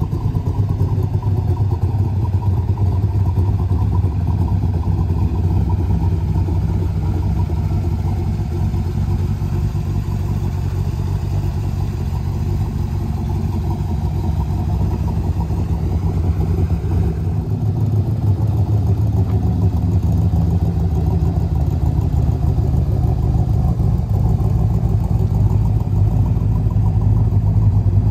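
1965 Corvette's 327 cubic-inch, 365-horsepower small-block V8 idling steadily, getting louder about two-thirds of the way through.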